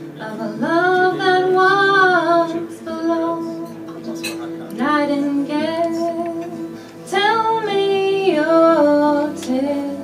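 Live song: a woman singing three phrases over strummed acoustic guitars.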